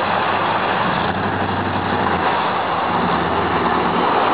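1987 GMC 4x4 pickup being driven, its engine running under a loud, steady rushing noise, with the engine note shifting slightly about a second in and again about three seconds in.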